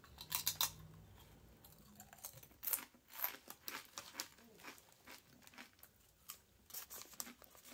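Kettle-cooked potato chips crunching as they are chewed, faint short crackles scattered throughout; toward the end the plastic chip bag crinkles as it is lifted.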